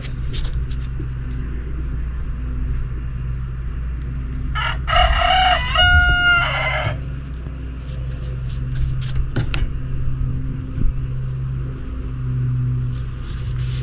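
A rooster crows once about five seconds in: a single call of about two seconds that ends on a held note. Under it runs a steady low hum, with a few sharp knocks later on.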